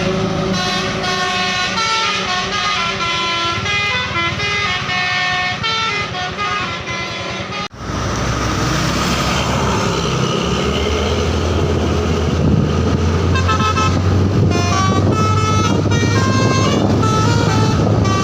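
Bus telolet horn playing a quick stepped melody of short notes. After a sudden break about eight seconds in, the bus engine runs steadily and the horn melody plays again from about twelve seconds in.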